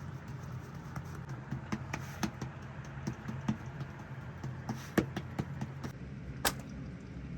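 Irregular light clicks and taps over a steady low hum, with two sharper knocks about five and six and a half seconds in.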